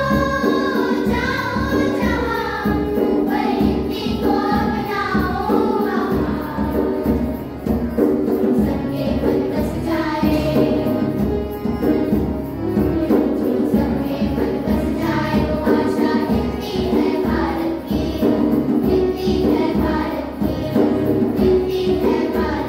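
Children's choir singing a Hindi song into microphones, accompanied by acoustic guitar, a djembe hand drum and keyboard with a steady beat. The voices stand out most in the first few seconds.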